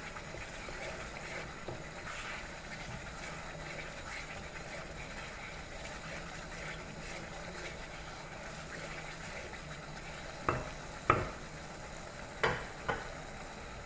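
Onion-tomato spice masala frying steadily in a pan, with stirring. Near the end come four sharp knocks.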